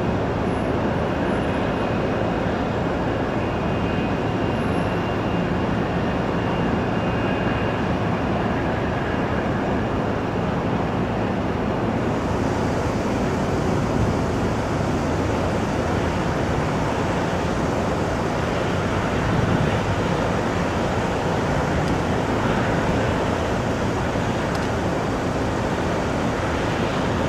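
Steady roar of a British Airways Boeing 777's jet engines as the airliner rolls out and taxis after landing, with a faint high whine in the first several seconds.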